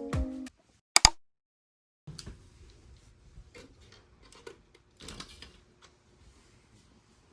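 Pitched music stops just after the start, followed by a single sharp click and a moment of silence. Then come faint, irregular clicks and knocks over a low hum, a few every second.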